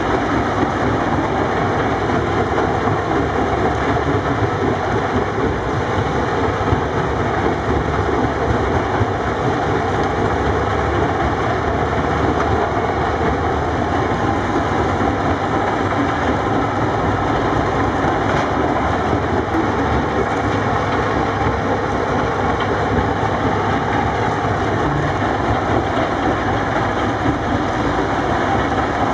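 Steady, dense din of heavy quarry machinery: a tracked mobile rock crusher running while a CAT 330D excavator and a CAT wheel loader run their diesel engines.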